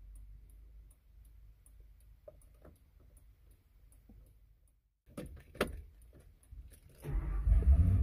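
Keys jingling and small clicks as a new ignition lock cylinder is pushed into a Ford F350 steering column and the key is turned. About seven seconds in, the truck's engine starts and settles into a loud, steady, deep running.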